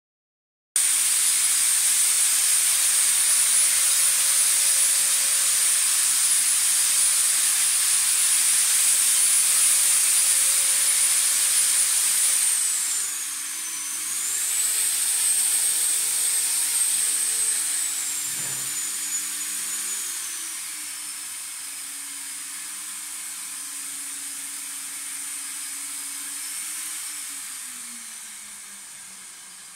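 Disinfection fogger spraying: a loud hiss of air and mist with a high motor whine over it. About halfway the whine dips, then steps down lower, and the hiss grows quieter toward the end.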